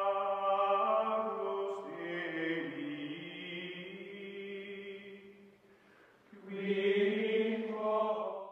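Background music: a choir-like chant of long held notes, which fades out about five and a half seconds in and comes back about a second later.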